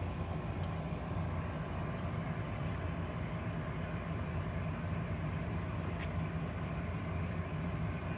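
Rheem hybrid heat-pump water heater running in heat pump mode: its compressor and fan give a steady low hum and the rush of the cold air it discharges.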